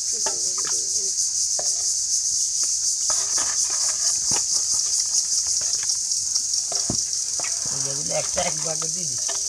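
Insects chirring in a steady, high drone, with scattered knocks and splashes as a steel bowl scoops live catfish and water in a plastic tub.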